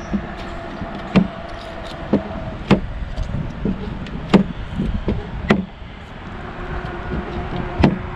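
Sharp clicks and knocks, roughly one a second, from scrap metal being pried off a double-sided fishing magnet and from a plastic trash can's swing lid being pushed, over a low rumble of handling noise.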